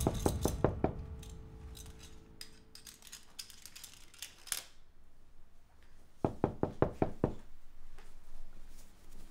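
Metal belt buckle on jeans clinking as it is fastened: a quick run of sharp clicks, a single click midway, then a second run of about six clicks. A held music note fades out at the start.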